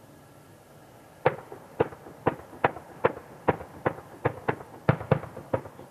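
Distant 30 mm cannon fire from a Mi-24P's live firing: about a dozen separate sharp bangs, roughly two to three a second, starting about a second in.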